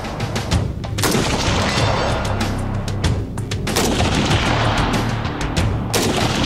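Background music with a heavy, steady bass, mixed with repeated gunshots: sharp bangs, two of them louder than the rest, about a second in and near the end.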